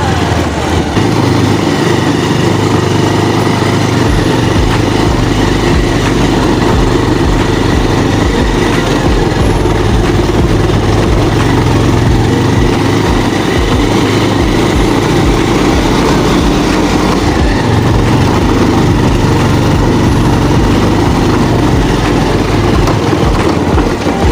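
Motorcycle engine running steadily while riding on a rough off-road track, with uneven low rumbling underneath.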